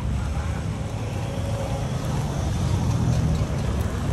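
Street noise while walking: a steady low rumble of wind buffeting the microphone mixed with motorbike and car traffic, swelling a little in the second half.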